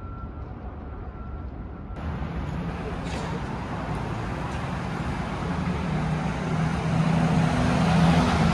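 Road traffic: a motor vehicle's engine growing steadily louder as it approaches, loudest near the end, then starting to fade as it passes. Before it, about two seconds in, the background changes abruptly.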